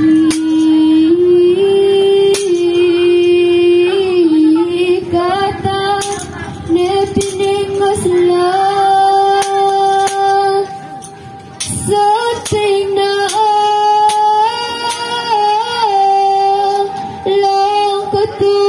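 A woman's voice singing slow, long-held notes, with a brief break about eleven seconds in.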